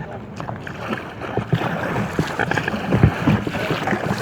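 Water splashing around an inflatable kayak, with irregular low knocks on the hull and wind on the microphone.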